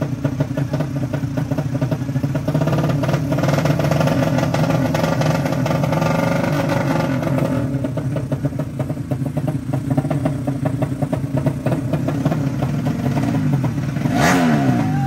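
Drag-race motorcycle engines running at the start line with the throttle held and wavering, then a quick rising rev near the end.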